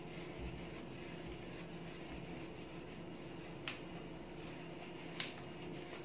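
Steel wool rubbing over the chrome spout of a kitchen mixer tap, a faint scratchy scrubbing, with two sharp clicks a second and a half apart, near the middle and toward the end. A steady low hum runs underneath.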